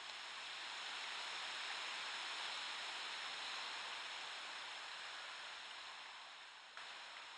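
Shallow river water running over stones: a steady rushing hiss that slowly fades, with a small sudden jump in level near the end.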